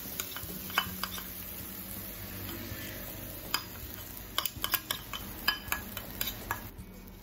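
Okonomiyaki batter with shredded cabbage and meat sizzling as it is poured onto a hot iron griddle. Over it comes a run of sharp clinks from the metal mixing bowl as the last of the batter is scraped out, most of them about halfway through.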